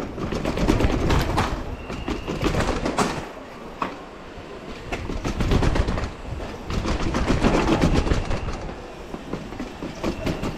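Mountain bike clattering and rattling over rough, bumpy ground, with a dense run of knocks and rattles that swells and fades, and wind rushing on the microphone.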